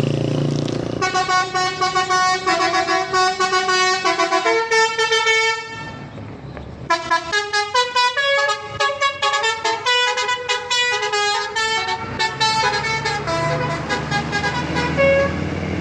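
Telolet horn of a Berkat Jaya bus: a multi-tone musical horn playing a tune, first a few held notes, then after a short break a faster run of short notes that thins out toward the end. The bus's engine runs under it at the start and the end.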